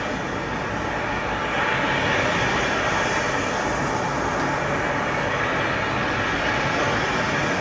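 Steady, unbroken rushing noise with a low rumble underneath, with no distinct events.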